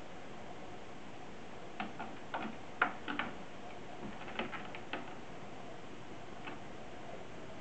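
A cat's claws catching and clicking on the sisal-rope post and carpeted platform of a cat tree as it rears up and claws at the post. About a dozen irregular sharp clicks and scrapes fall between about two and five seconds in, the loudest near three seconds, over a steady faint hiss.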